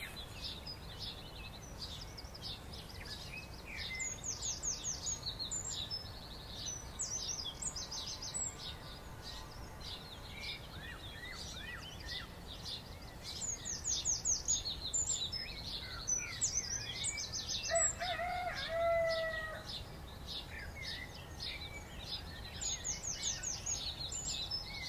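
Small birds chirping and singing, with repeated quick runs of high falling notes over a steady low background hum. About three-quarters of the way in, a lower, drawn-out call lasts about a second.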